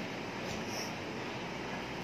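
Steady background noise of a restaurant dining room, with a faint click about half a second in.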